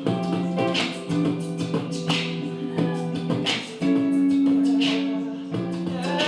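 Acoustic guitar strumming chords with a steady rhythm in an instrumental stretch of an R&B song, no vocals.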